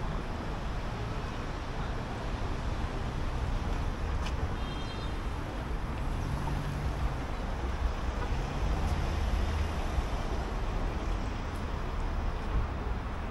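Street ambience of steady road traffic, a low rumble of passing vehicles, with a brief high chirp about four and a half seconds in.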